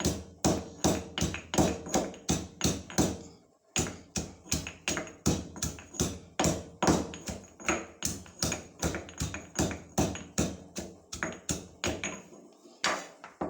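Cardamom, ginger, pepper, cumin and garlic being pounded with a stone pounder on a plate: sharp, rhythmic strikes about three a second. The strikes pause briefly about three and a half seconds in and trail off near the end.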